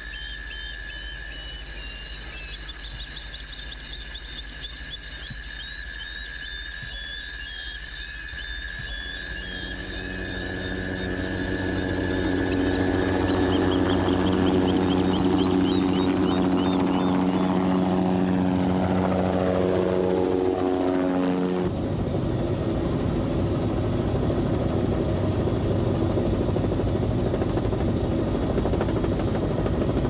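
Birds and insects chirping, then a helicopter's rotor and turbine grow louder from about nine seconds in and fall in pitch as it passes. About twenty-two seconds in the sound cuts to the steady noise of the helicopter heard from inside its open cabin, with a high whine.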